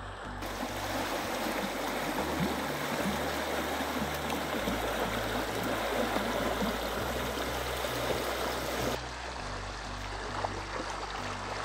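River water flowing with a strong current, a steady rush. Soft background music with low notes changing every second or two plays underneath. The rush thins out about nine seconds in.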